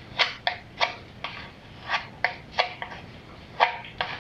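A small filler knife scraping and tapping across a window board as it presses and smooths two-part body filler into a hole, about ten short, sharp strokes at uneven spacing. The filler is already starting to go tacky.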